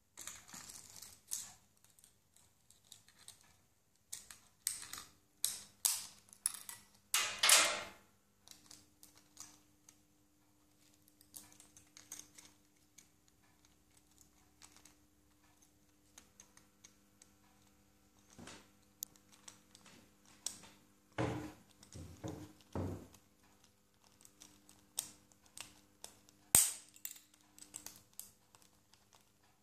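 Alexandrine parakeet chewing and cracking a plastic pen with its beak: irregular sharp clicks and snaps of plastic, with a longer crunch about a quarter of the way in and a few duller knocks about two-thirds through.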